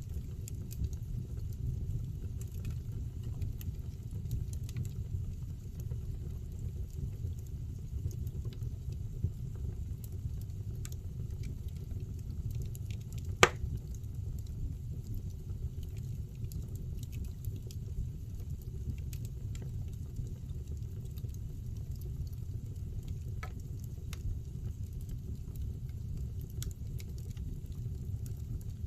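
Wood fire burning in a fireplace: a steady low rush of flames with scattered small crackles from the logs, and one sharp, loud pop about halfway through.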